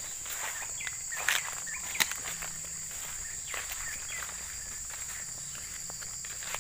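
Footsteps pushing through leafy undergrowth, over a steady high-pitched insect drone. Two sharp snaps stand out, about one and two seconds in.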